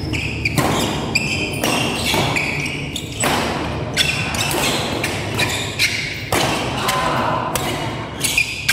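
Badminton rally: a quick series of sharp racket hits on the shuttlecock, under a second apart, with shoes squeaking on the court floor and crowd chatter underneath.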